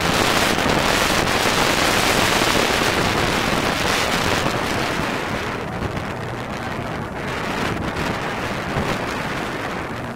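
Wind buffeting the microphone over the rush of water along a moving boat. The hiss eases about halfway through.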